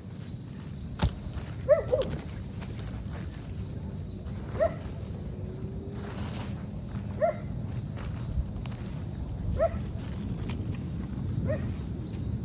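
An animal calling outdoors: five short pitched calls, one every two to three seconds, over soft rustling and a few sharp clicks, one loud click about a second in.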